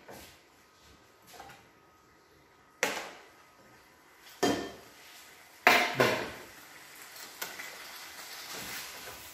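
Kitchenware clatter: three sharp knocks with a short ring, spaced a second or more apart, the loudest a little past halfway, as a glass pan lid and small bowls are handled on a steel counter. A faint steady hiss follows in the second half.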